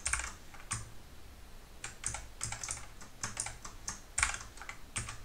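Computer keyboard being typed on, in irregular short runs of keystrokes with pauses between them.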